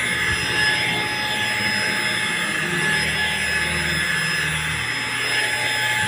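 Deerma handheld anti-dust vacuum cleaner running steadily on a fabric sofa, its motor giving an even whoosh with a constant high whine.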